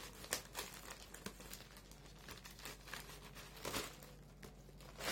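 An Amazon delivery packet being handled and cut open with scissors: irregular bursts of packaging noise, with louder ones just after the start and just before four seconds in.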